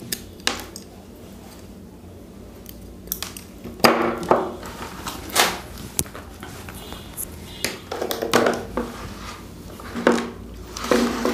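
Hands handling wires and tools on a wooden workbench: scattered clicks, taps and rustles as wire leads are trimmed with pliers, laid out and hooked up to a test-lamp board.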